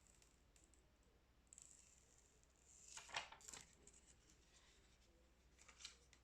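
Faint handling noise over near silence: a cluster of short scratchy clicks about three seconds in, and a couple more near the end.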